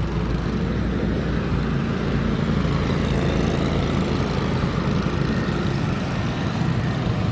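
Small petrol engines of riding lawn mowers and ATVs running as they drive past one after another, a steady low engine drone.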